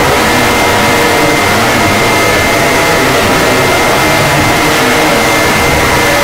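Deliberately overdriven, distorted emergency-alert alarm sound: a constant, very loud, harsh wall of noise with several steady tones held under it, never letting up.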